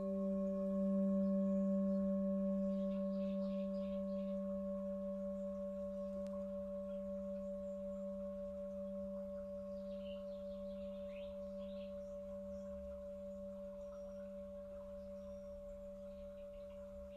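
Large Tibetan singing bowl held on the palm, ringing out after a strike: a steady G note with a D overtone above it, fading slowly with a gentle wavering pulse.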